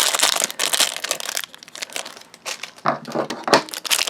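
Plastic wrapping crinkling and tearing in irregular bursts as the layers of an LOL Surprise ball are peeled open by hand.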